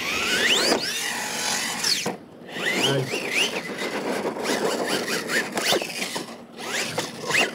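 Electric radio-controlled monster truck's motor whining, revving up and down again and again as it is driven hard on dirt, easing off twice.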